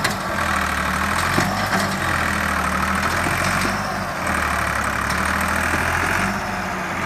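Massey Ferguson 260 Turbo tractor's diesel engine working under load as it tries to pull a soil-laden trolley out of loose sand. The rear wheels are dug in. The steady engine note eases briefly a few times.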